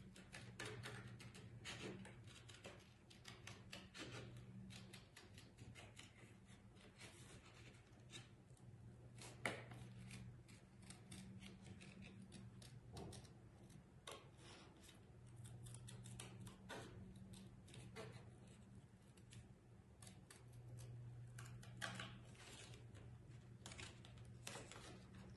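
Scissors snipping through thin cereal-box cardboard: a long run of faint, irregular snips, with a sharper cut about nine and a half seconds in and another about twenty-two seconds in.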